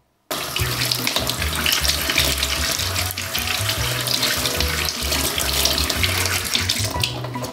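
Kitchen tap running onto cherry tomatoes being rinsed by hand over a stainless steel sink: a steady splashing hiss of water that starts suddenly just after the beginning.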